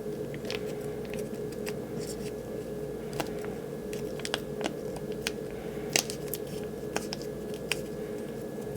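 Blue painter's tape being handled and wrapped around a small plastic action figure's arm: scattered small clicks, ticks and crinkles, over a steady background hum.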